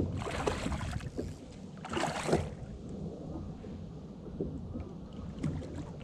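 Water lapping against a kayak hull, with wind on the microphone. Two loud bursts of hiss come in the first two and a half seconds.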